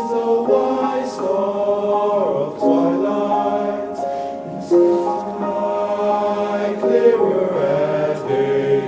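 Men's chorus singing held chords in several parts, the notes shifting every second or so.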